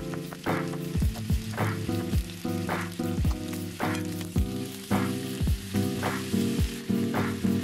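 Chicken thighs sizzling in a frying pan, a steady hiss heard under background music with a steady beat and sustained chords.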